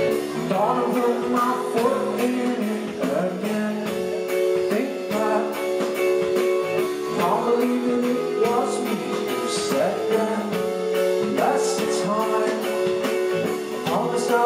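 Indie rock band playing live: electric guitar, keyboard and drums keep a steady beat while the lead singer sings, heard from the audience.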